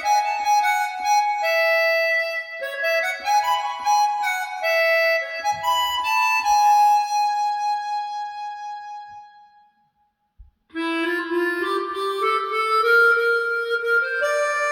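Recorded music played back through Fyne Audio F500SP loudspeakers: a single melody line of sustained notes. The last note fades away about two-thirds of the way in, there is a second of silence, then a new phrase starts.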